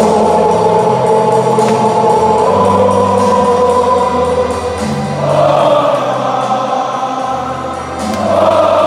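Many voices singing together in long held notes over music with a bass line that moves in steps.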